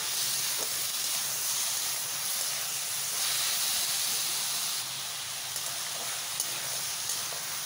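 Chopped onion, capsicum and tomato sizzling as they are sautéed in oil in a hot kadai: a steady hiss, with a few faint clicks of the stirring spatula.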